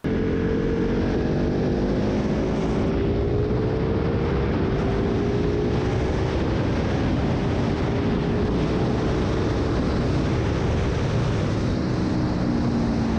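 Ducati 1299 Panigale R Final Edition's L-twin running through a full Akrapovic race exhaust with a carbon belly can, ridden at speed at fairly steady revs that rise and fall a little, with wind rushing over the microphone.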